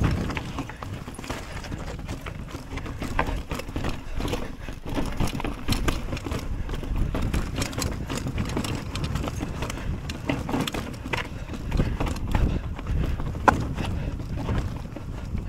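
Mountain bike clattering over a rocky path: many small irregular knocks and rattles over a low rumble of wind on the microphone.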